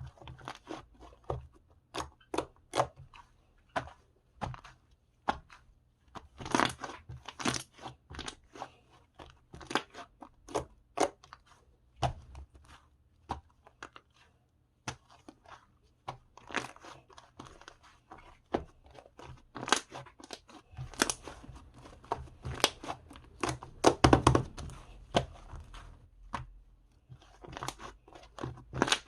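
Slime being squished, pressed and stretched by hand, making many irregular sharp pops and crackles, with a denser, louder stretch of them a little over two-thirds of the way through.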